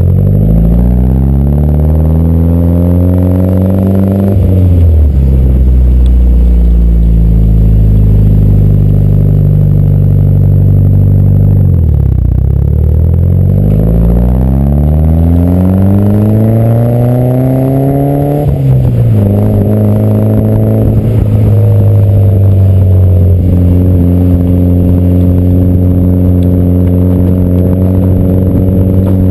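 Mitsubishi Lancer Evolution IX's turbocharged 2.0-litre four-cylinder through an AMS turbo-back exhaust, heard close to the tailpipe as the car accelerates. The revs climb and drop sharply at a gear change about four seconds in, then fall slowly, climb again from low and drop at a second shift near nineteen seconds, and the engine then holds a steady cruise.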